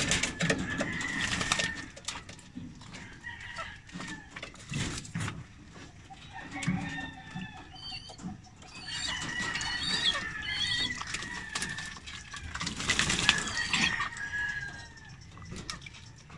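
Backyard chickens calling, a rooster crowing among them, over bursts of splashing and wing-flapping from pigeons bathing in a shallow water basin; the loudest burst comes a few seconds before the end.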